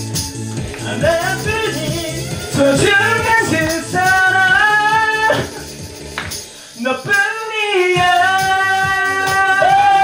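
Karaoke backing track playing with a steady beat, voices singing along over it, and handheld tambourines being shaken in time. Near the middle the bass drops out for a moment, then the beat returns under long held sung notes.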